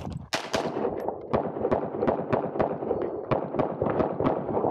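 Staccato P pistol fired in a fast string of shots. They start about a third of a second in and come several a second, in quick pairs and short runs with brief pauses between.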